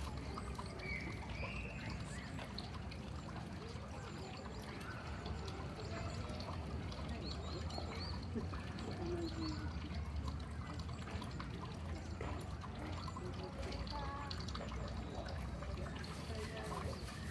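Steady trickling, running water, with faint voices in the background.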